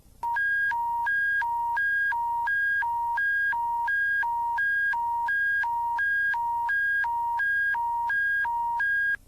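Emergency alert attention signal: a loud electronic two-tone warble switching between a lower and a higher pitch about two cycles a second, starting and stopping abruptly.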